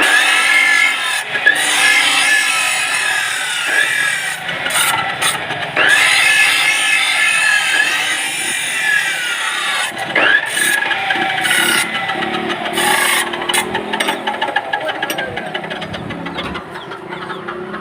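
A power tool working a workpiece, running continuously with shrill squeals that rise and fall in pitch.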